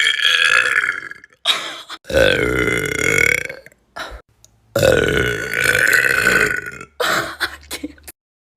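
A young woman burping deliberately, forcing burps from swallowed air: a string of long, loud burps of one to two seconds each, with short ones between and a quick run of short burps near the end.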